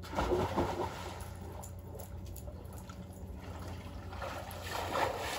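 Swimming-pool water splashing and lapping as a person dives in and swims, a little louder near the end.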